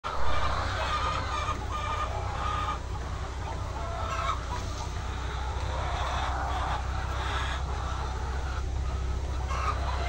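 A large flock of white laying hens clucking and squawking all at once, many short calls overlapping, over a steady low hum.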